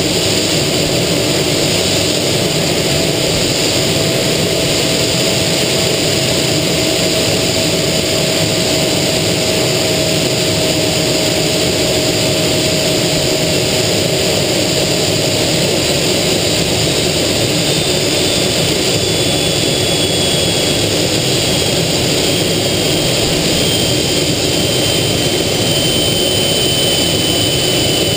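Aero L-29 Delfín jet trainer in flight, heard from inside the cockpit: its single Motorlet M-701 turbojet and the airflow make a steady, loud roar. A lower whine slides slowly down in pitch over the first half, and a higher whine slides down in the second half.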